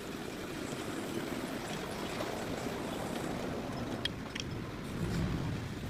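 A steady low rumbling noise, with a few sharp clicks, that swells louder about five seconds in.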